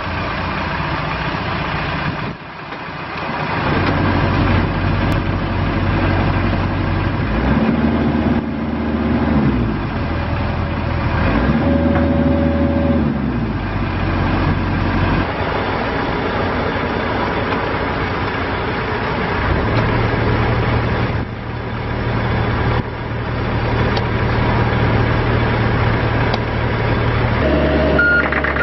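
John Deere 50D mini excavator's diesel engine, started with the key and running steadily. Its speed rises and falls a couple of times and steps up to a higher, steady pitch about 20 seconds in.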